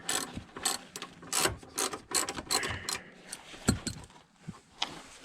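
Socket ratchet wrench clicking as a bolt on the parking brake pedal assembly is driven in, in quick repeated strokes, then slowing to a few scattered clicks and a single knock in the last couple of seconds.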